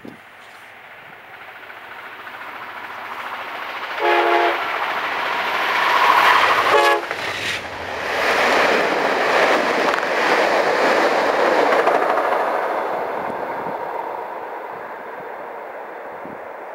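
A VIA Rail passenger train approaches and passes underneath with two short horn blasts, about four and seven seconds in. The rumble of the locomotive and cars swells to its loudest as the train goes by, then fades away.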